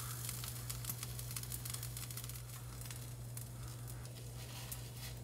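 Faint crackling sizzle from a hot pan as honey is poured into it, over a steady low hum.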